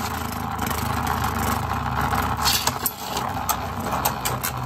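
Two Beyblade Burst spinning tops whirring in a plastic Beyblade stadium, just after launch: a steady spinning hum, with sharp clicks several times from about two and a half seconds in as the tops clash.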